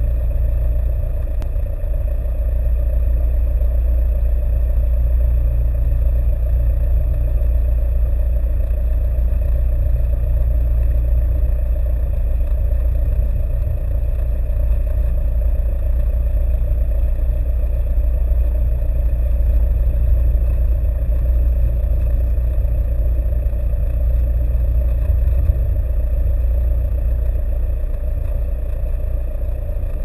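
Piper Cherokee 140's four-cylinder Lycoming engine and propeller running steadily at low taxi power, heard from inside the cabin as a loud, even drone.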